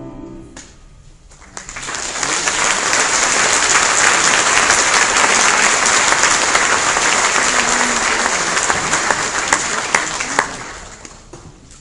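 A held final chord of the music cuts off just after the start, then audience applause builds about a second and a half in, holds steady, and dies away near the end.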